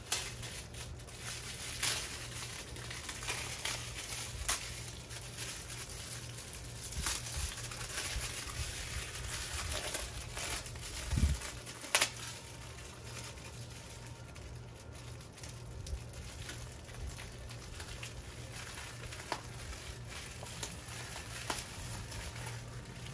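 Telescoping aluminium flagpole sections being handled and extended: scattered light clicks and taps of metal tube, with a louder pair of knocks about eleven and twelve seconds in, over a faint low hum.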